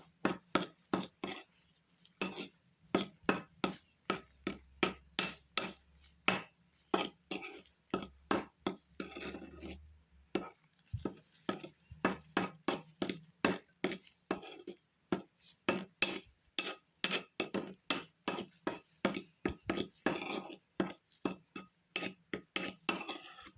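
A spoon stirring a baking soda and lemon juice paste in a bowl, clicking against the bowl in quick repeated strokes, about three a second, to knock down the foam from the fizzing reaction.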